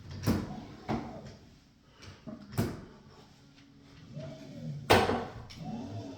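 Tonal clicking noise: four sharp clicks at uneven intervals, the loudest about five seconds in, with short tonal sounds that rise and fall in pitch between them.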